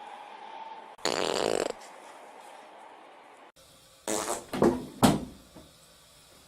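A loud, buzzy fart sound lasting under a second, about a second in. A few seconds later come several short, loud cries.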